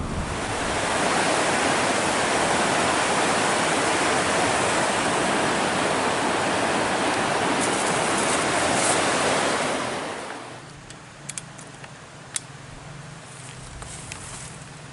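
Steady loud rush of fast-flowing river water. About ten seconds in it drops to a quieter hiss, with a few sharp clicks near the end.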